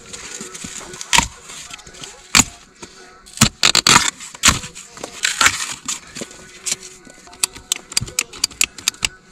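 Hands working a damaged insulated PEX water line, with irregular scraping and crackling of the pipe's foam insulation and jacket. Near the end comes a quick run of sharp clicks, several a second.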